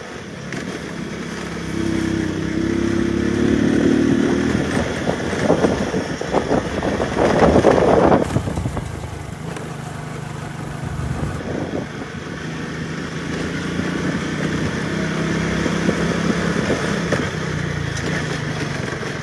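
Motor vehicle engine running on the move, its pitch rising and falling with changes of speed. About eight seconds in there is a loud burst of rushing noise.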